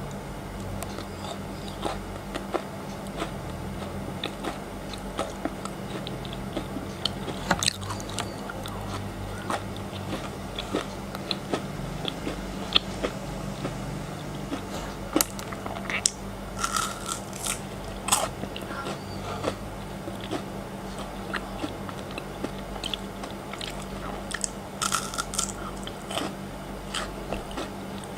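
Close-miked biting, crunching and chewing of frozen chocolate: irregular sharp crunches, busiest about halfway through and again near the end.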